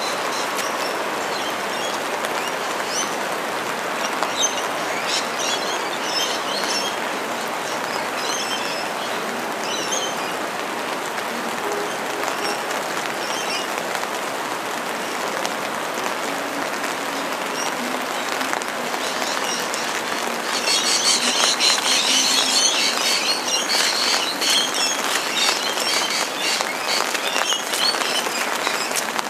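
Steady rain falling, with scattered short high chirps in the first half. About twenty seconds in the rain gets louder and turns into a dense patter.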